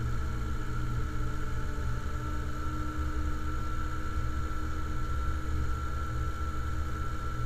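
Fendt tractor driving along a road, its engine running at a steady pace: a low, unbroken rumble with a thin, steady high whine above it.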